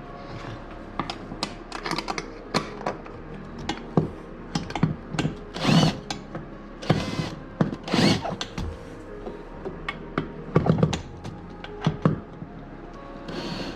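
Cordless drill or driver run in short bursts, taking out the old trolling motor's mounting hardware, among many clicks and knocks of tools and metal parts being handled.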